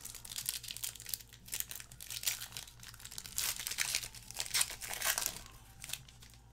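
Foil wrapper of a Panini basketball card pack being torn open and crinkled by hand: a quick, uneven run of crackles that dies away about six seconds in.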